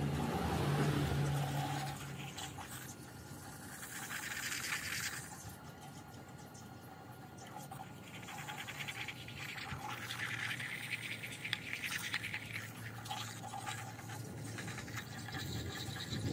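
Wood lathe running with a steady low hum while a hand-held block is pressed against the spinning wooden vase, giving a rasping rub that comes and goes in several bouts, strongest a little past the middle.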